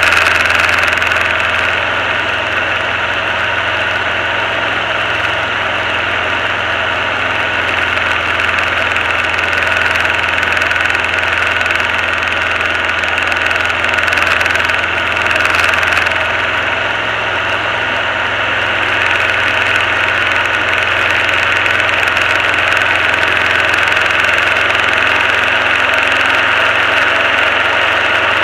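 Diamond DA20 light aircraft's piston engine and propeller running with a steady drone, heard from inside the cockpit.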